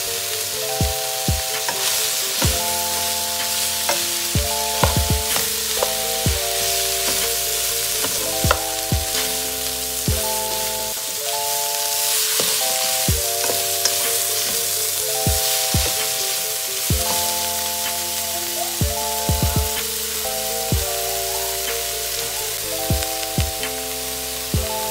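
Beef, carrots and broccoli stir-frying in a hot pan: a steady sizzle, with a spatula clacking against the pan again and again as it is stirred. Background music with sustained chords plays underneath.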